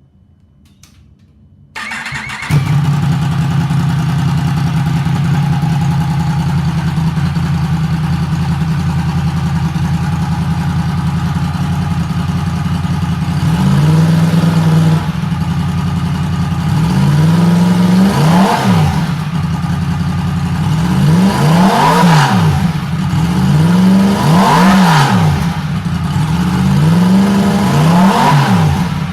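Yamaha MT-10's crossplane inline-four engine starting about two seconds in, settling to a steady idle, then blipped on the throttle five or six times in the second half, the pitch rising and falling with each rev. It runs on the stock exhaust with the end can removed, which makes it rough.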